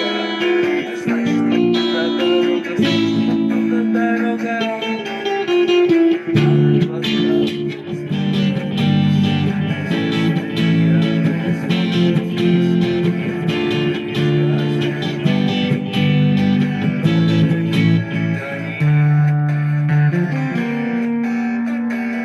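Instrumental guitar music: a melody of held notes over a moving low line, with no singing.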